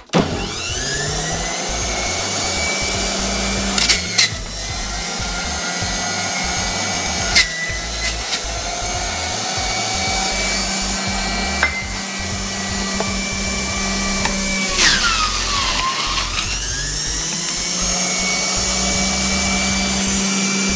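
Centrifugal juicer motor starting up and running with a steady hum and high whine while watermelon is fed through it. About fifteen seconds in, the whine drops sharply in pitch as the motor is loaded down, then climbs back. There are a few sharp knocks along the way.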